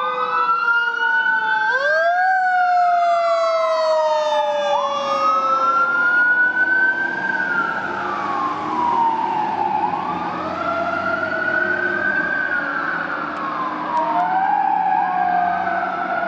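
Fire truck sirens wailing, two or more overlapping, each rising and falling in slow sweeps every few seconds. Among them is the wind-up and long wind-down of a Federal Q2B mechanical siren, with the trucks' engines and traffic rumbling underneath.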